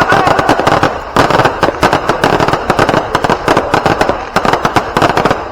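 Fireworks going off in a dense barrage: rapid, overlapping cracks and bangs with no pause.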